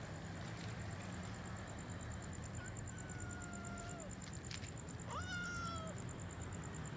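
A stray cat meowing twice: one long meow about two and a half seconds in, then a louder meow about five seconds in that rises quickly and then slowly falls.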